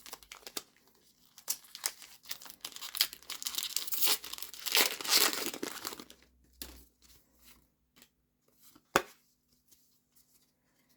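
Foil booster-pack wrapper being torn open and crinkled, a dense crackling that is loudest about four to five seconds in. It thins out into a few light clicks, with one sharp tap near the end.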